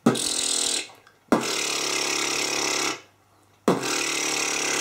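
Beatboxer performing the harsh lip bass: a loose buzzing lip vibration with a hissing "shh" mixed in. Three long notes, each starting with a sharp hit.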